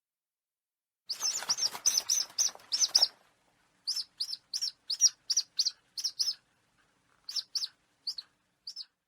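A bird of prey calling: a series of sharp, high, repeated notes starting about a second in, fast at first, then evenly at about three a second, thinning to single and paired notes near the end.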